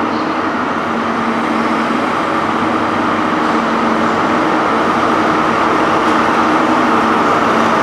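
Diesel engine of a Class 43 HST power car running as the train creeps along the platform: a steady drone with a few held low tones, growing slowly louder as the power car comes past.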